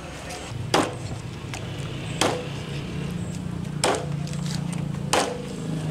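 Heavy chopping strokes on a wooden board, four sharp chops about a second and a half apart, over a low steady hum.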